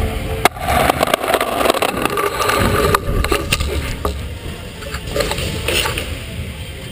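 Scooter riding fast down a wooden ramp and into a foam pit. A sharp knock comes about half a second in, then dense clattering noise that settles into softer rustling of foam blocks after about three seconds.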